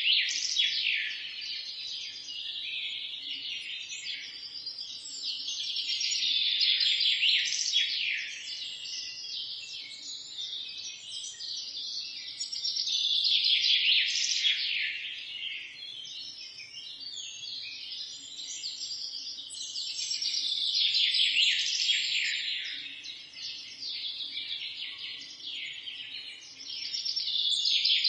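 Several birds chirping and singing together in a dense chorus of quick, high chirps. The chorus swells and fades about every seven seconds.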